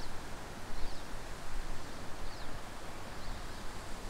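Outdoor ambience of steady wind noise and rustling, with four short, high chirps from a small bird spread through it.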